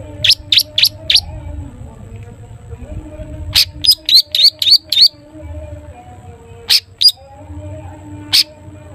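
Long-tailed shrike (cendet) giving short, sharp, high 'toet toet' notes in quick runs. Four notes come about a second in, then a faster run of about eight in the middle, then a pair and a single note toward the end, over a low background hum.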